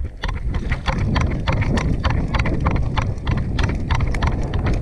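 Quick running footsteps, several a second and irregular, with knocks and rattles of gear over a heavy low rumble.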